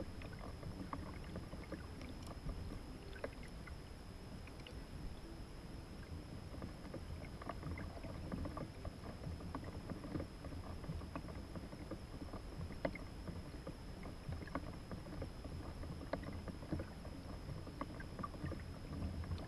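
Kayak on calm sea water: a steady low rumble of water against the hull with scattered small clicks and knocks, and a thin steady high whine over it.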